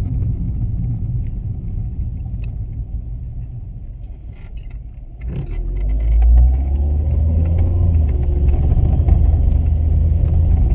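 Low rumble of a moving car, easing off about four to five seconds in, then coming back louder with a strong low engine hum.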